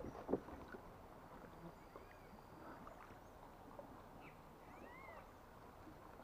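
Quiet riverside ambience with a few faint, short bird calls about two, four and five seconds in, and a light knock right at the start.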